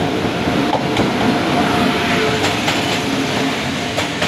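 WAP-7 electric locomotive and its LHB coaches running past close along a station platform: a loud, steady rumble of wheels on rail, with a few sharp clicks from wheels crossing rail joints and a faint steady whine over it.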